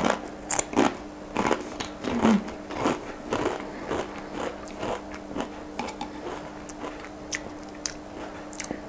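A person chewing a mouthful of Pringles potato crisp, with crisp crunches that come thick over the first few seconds and grow sparser as the mouthful is chewed down.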